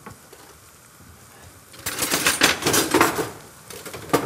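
Chopped onion, garlic and coriander frying in oil in a frying pan, stirred with a wooden spoon. A loud burst of sizzling and scraping comes about two seconds in, and a sharp knock of the spoon on the pan comes near the end.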